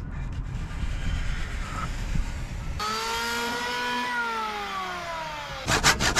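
Electric hand planer running on a board: its whine starts suddenly about three seconds in, rises a little, then falls slowly for a couple of seconds. Near the end, a hand saw starts fast strokes through wood.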